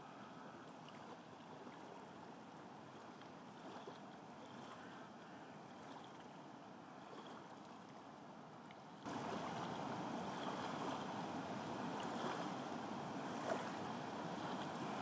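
Rushing water of a small waterfall, a steady noisy rush that gets suddenly louder about nine seconds in, with one brief click near the end.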